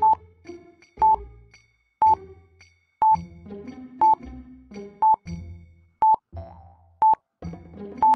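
Countdown-timer sound effect: a short, sharp beep once a second, nine in all, over light background music.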